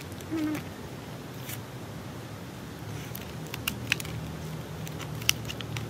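A lip balm being opened out of its cardboard card pack by hand: a few short, sharp clicks and snaps, loudest about four seconds in and again near the end.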